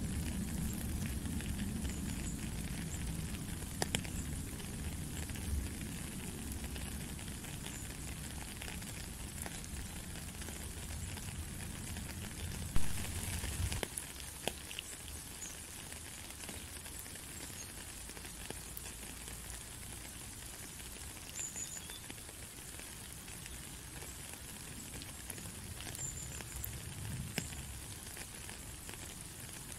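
Steady patter of rain falling on a puddle and wet gravel, with scattered sharper drip ticks and one louder knock a little before halfway. A low rumble under the rain fades out about halfway through.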